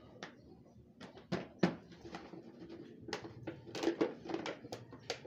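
Irregular crackles and snaps of a cut plastic bottle planter being gripped and handled as the potting soil in it is worked loose, with the loudest snaps about one and a half seconds in and a cluster around four seconds.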